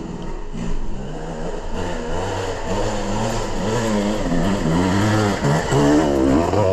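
Dirt bike engine revving up and down again and again as the throttle is worked, getting louder toward the end.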